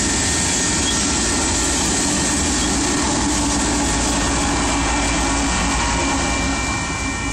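Freight train passing close by: loaded covered hopper cars rolling on steel rails with a steady rumble and a thin, steady high whine. From about halfway through, the rear pusher locomotive, a GE ES44AC diesel-electric, passes and its engine adds a steady low hum.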